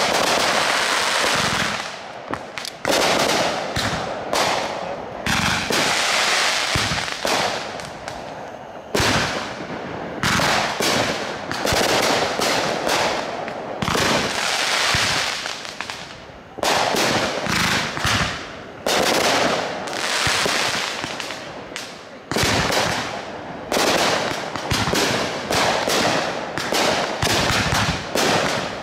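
Aerial fireworks bursting overhead: sharp bangs about once a second, some in quick clusters, with hissing and crackling between them.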